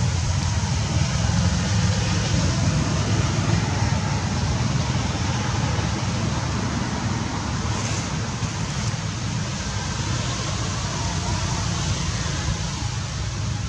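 Steady outdoor background noise: a low rumble with an even hiss above it, with no distinct calls or events.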